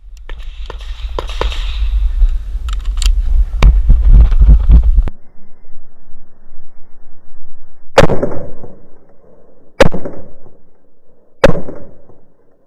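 Three loud pistol shots from a Glock 19, about a second and a half to two seconds apart, each with a short echo. Before them, a heavy low rumble on the microphone with scattered sharp clicks runs for about five seconds, then stops suddenly.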